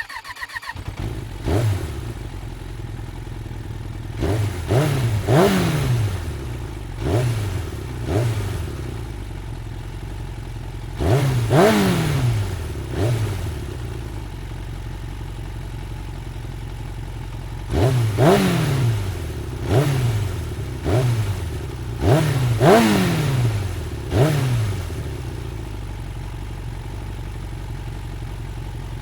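Motorcycle engine idling and being revved in short throttle blips, more than a dozen times, each quickly rising in pitch and dropping back to idle.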